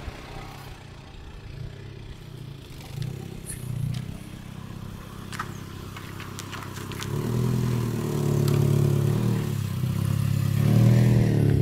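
Suzuki Swift's small petrol engine running at low speed as the car drives up close, its hum growing louder over the last few seconds. A few light clicks come through in the middle.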